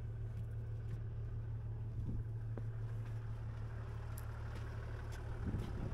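A vehicle engine idling as a steady low hum, with a few faint knocks.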